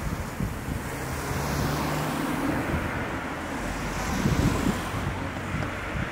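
Car traffic on a city street: engine and tyre noise of cars passing, with one car going by close about four seconds in, over a low wind rumble on the microphone.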